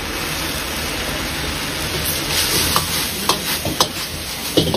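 A long steel ladle stirring and tossing sauced potato strips in a hot wok: sizzling over a steady hiss, growing brighter about halfway through, with the ladle clacking against the wok four or five times in the second half.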